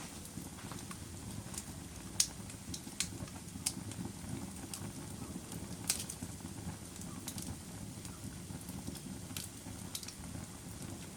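Wood fire burning in a fireplace: a steady low rumble of flames with sharp crackles and pops at irregular intervals, the loudest about two and six seconds in.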